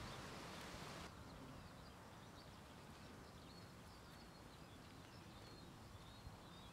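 Near silence: faint outdoor background with scattered small bird chirps, after a soft hiss drops away about a second in.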